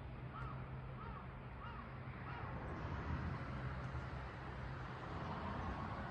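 A crow cawing four times in quick succession, about a call every 0.6 seconds, over a steady low hum.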